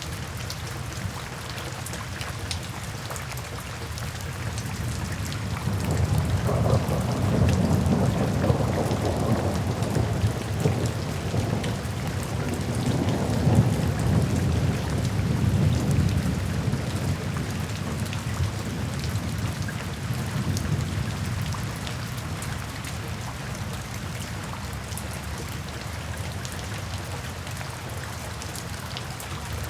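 Steady rain falling, with a long low roll of thunder that builds about five seconds in, swells through the middle and dies away about two-thirds of the way through.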